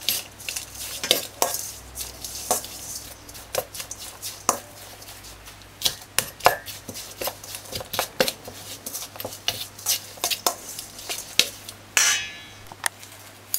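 Metal spoon stirring shredded salt cod and seasonings in a stainless steel mixing bowl, clinking and scraping against the steel in irregular strokes, with one longer, louder scrape near the end.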